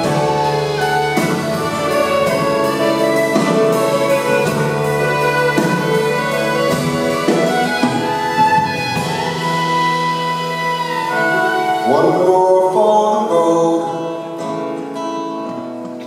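Live acoustic folk-rock music: a steel-string acoustic guitar strumming under a held melody line, with no words sung. It thins out and drops in level over the last couple of seconds.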